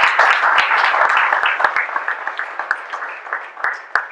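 Audience applause that thins into a few scattered claps and dies away near the end.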